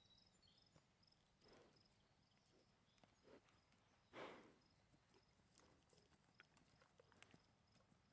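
Faint hoofbeats of a paint mare loping on soft arena dirt, with a short rushing noise about four seconds in.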